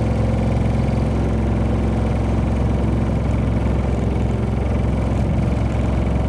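Steady low drone and vibration heard inside the cabin of a Honda Odyssey Hybrid (RC4) on the move: the abnormal vibration and noise of a shimmy, the wheel-and-steering shake that set in after the car crossed a bump in the road.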